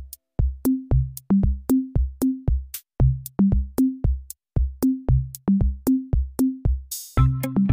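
Upbeat children's background music: a drum-machine beat with a short low note on each stroke, about three a second. A crash near the end brings in fuller, held notes.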